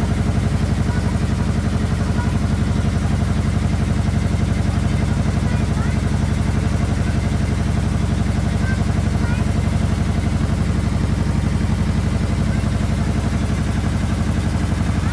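Small tour boat's engine running steadily as the boat moves along: a low, even drone.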